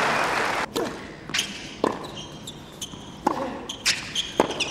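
Tennis ball bouncing and being struck by rackets on a hard court: a run of sharp hits, with sneakers squeaking in the middle of the stretch.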